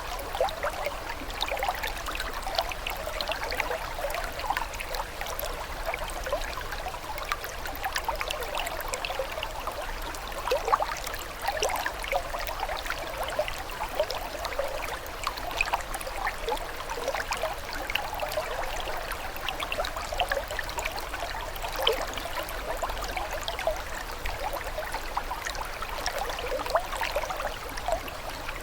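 Running water trickling and splashing steadily, with a constant patter of small bright plinks and droplets.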